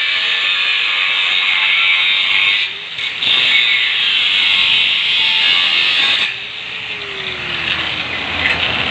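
Electric welding arc burning a hole through iron: a loud, steady hiss that breaks off briefly just before three seconds in and cuts off a little after six seconds.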